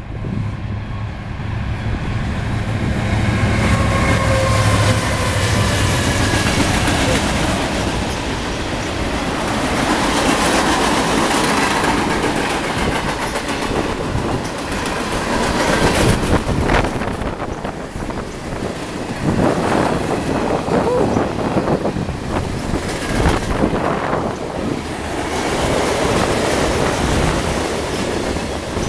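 A CN freight train passes at speed. Its lead CN SD70M-2 diesel locomotive drones low as it goes by in the first few seconds, and then a long string of freight cars rolls past with steady wheel rumble and clickety-clack over the rail joints. A few short wheel squeals come in the second half.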